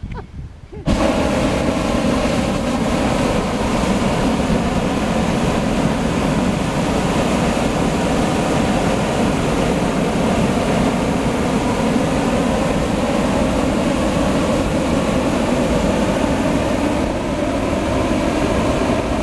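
Hot-air balloon propane burner firing: a loud, steady roar that starts suddenly about a second in and is held as one long burn, heating the envelope for liftoff.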